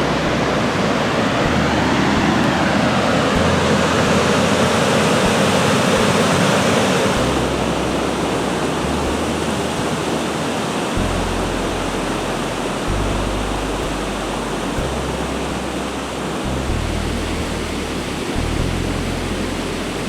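Small waterfall: steady rushing water, a little louder in the first seven seconds or so and slightly softer after.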